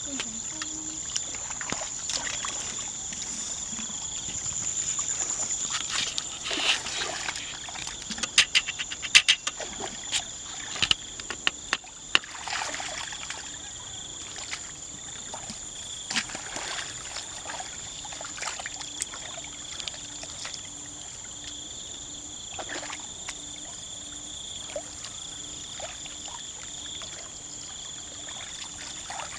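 Hands sloshing and splashing in shallow muddy paddy water as the girls feel through the mud for fish. There is a cluster of sharper splashes a third of the way through, over a steady high-pitched hum.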